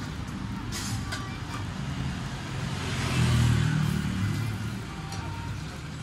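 Road traffic rumbling, with a motor vehicle passing close by and swelling loudest about halfway through. A couple of light clicks about a second in.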